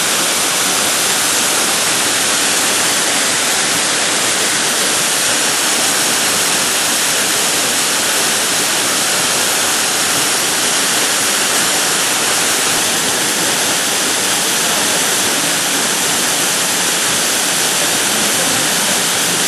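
Shasui Falls waterfall pouring steadily: a loud, even rush of falling water with no let-up.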